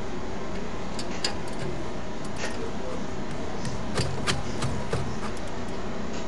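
Scattered sharp metal clicks and light knocks from hand tools on a car's rear brake disc and caliper carrier, over a steady background hiss; the clicks come thickest about four seconds in.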